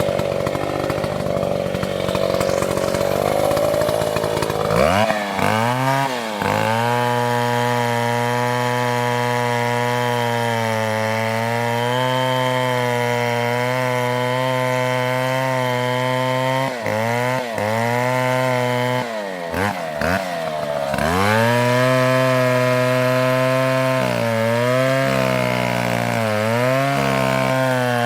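Chainsaw running at high revs, revving up about five seconds in. Its pitch sags and recovers several times as the chain loads up cutting into wood.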